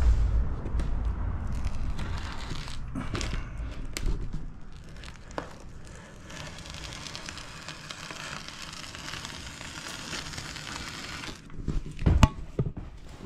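Expanding foam sprayed from a foam gun into the joints between insulation boards: a steady hiss with crackling, amid rustling and handling knocks. Two sharp knocks come near the end.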